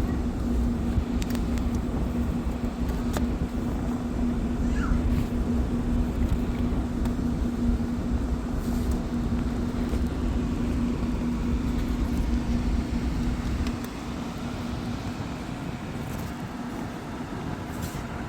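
A Mercedes-Benz E350's V6 engine idles steadily with a low hum, with Seafoam treatment added to its oil and fuel. About fourteen seconds in, the hum and rumble drop away and the sound gets quieter.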